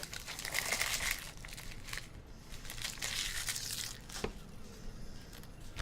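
Plastic wrapping crinkling and tearing as a box of football trading cards is opened: two rustling bursts, then a sharp click a little past four seconds in.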